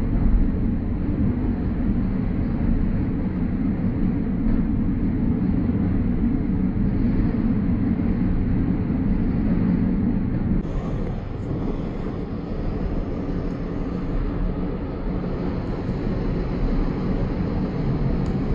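Steady low rumble of a moving passenger train heard inside the carriage, a little quieter from about ten seconds in.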